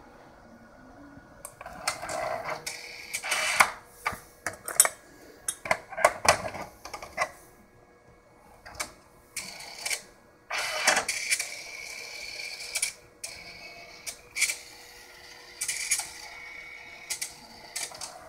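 ADIC FastStor 2 tape autoloader's internal robotic mechanism running an import to a slot: a string of short motor whirs and sharp clicks as it moves a tape cartridge. The busiest stretches come a few seconds in and again around the middle, over a steady faint hum.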